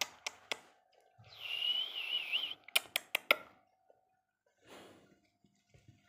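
Indian ring-necked parakeet giving a raspy call with a wavering pitch, lasting about a second and a half. Sharp clicks and taps come before it and as a quick run of four or five just after it.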